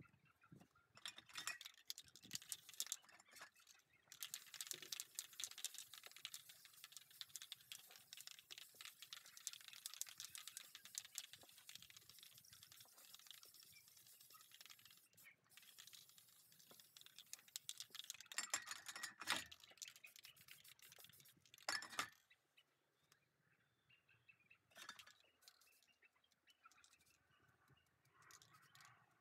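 Aerosol spray-paint cans hissing in soft, long sprays from a few seconds in until about three quarters of the way through, with light clicks and knocks of the cans being handled.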